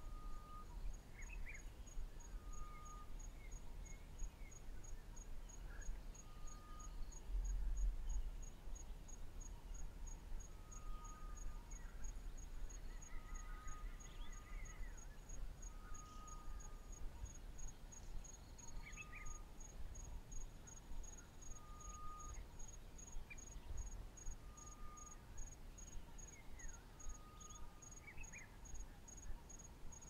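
African bush ambience with an insect chirping steadily in short high pulses, a little over two a second. Under it, a short single-pitched call repeats every two to three seconds, and a few brief higher bird chirps come and go. A low rumble swells briefly about eight seconds in.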